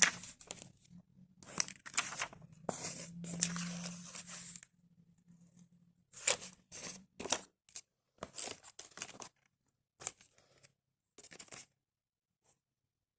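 Paper rustling and crinkling as the folded paper flaps, pockets and cards of a handmade lapbook are opened and handled: a dense run of rustles for the first four seconds or so, then separate short rustles.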